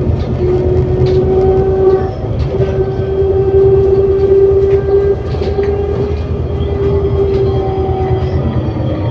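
ADL Enviro400 City double-decker bus heard from on board while under way: a low drivetrain rumble with a steady high whine over it that dips briefly twice, plus faint interior rattles.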